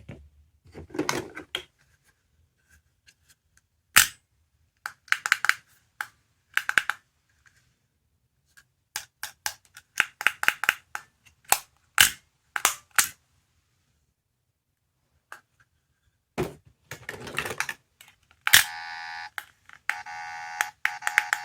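Push-button sound-effect capsule toys being played: clicks and short electronic sound effects starting and stopping at irregular intervals. Near the end a steady, buzzy electronic tone plays for a few seconds.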